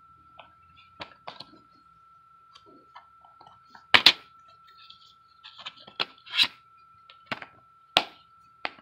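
Plastic DVD case being handled and opened: a series of sharp clicks and snaps, the loudest a double click about four seconds in as a thumb presses the disc at the centre hub, with more clicks later. A faint steady high tone runs underneath.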